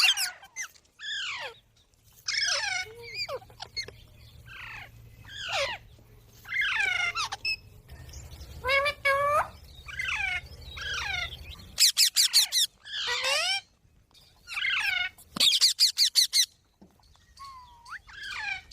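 Pet green parrot calling repeatedly, with harsh squawks that slide down in pitch about once a second. Twice it breaks into a rapid run of short, sharp screeches.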